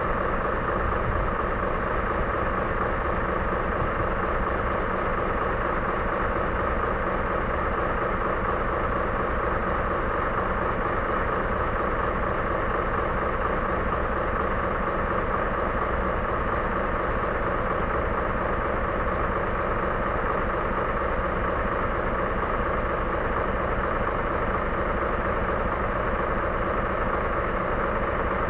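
A heavy engine idling, an even drone that does not change.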